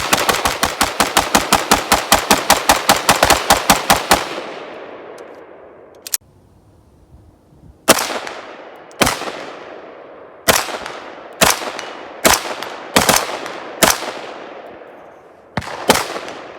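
Palmetto State Armory 10.5-inch AR-15-pattern pistol firing: a fast string of about two dozen shots over four seconds, then after a pause about ten single shots spaced roughly a second apart, each echoing away.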